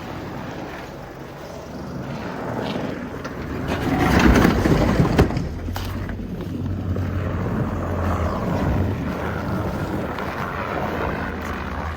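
Freshly rebuilt Mazda Miata 1.6 four-cylinder engine running on its first start after the rebuild. It revs up to its loudest about four seconds in, then settles into a steady run with a deep low hum.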